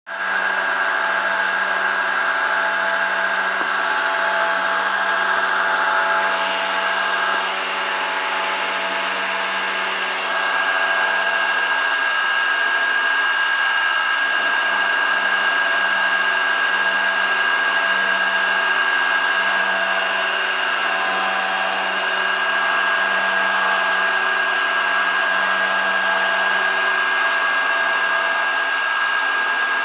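Light Machines Corporation benchtop CNC mill cutting acrylic with a 1/8-inch two-flute carbide end mill at 5000 rpm: a continuous machining whine with a steady high tone and a lower hum that pulses slowly.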